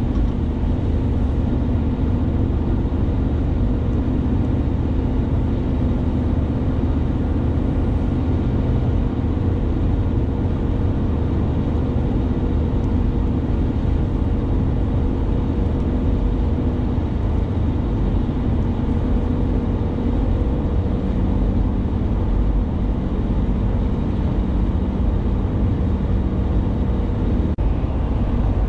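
Steady engine drone and tyre noise of a vehicle moving at highway speed, heard from inside the cabin, with a low, even hum.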